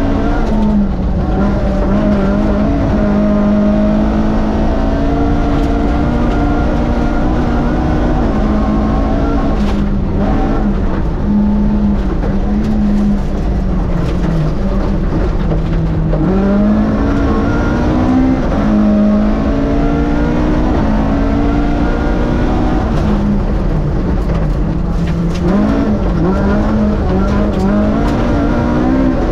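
Rally car's Vauxhall 2.0-litre four-cylinder race engine driven hard on a stage, heard from inside the car: the revs climb and drop again and again through gear changes and lifts, over steady road and tyre noise.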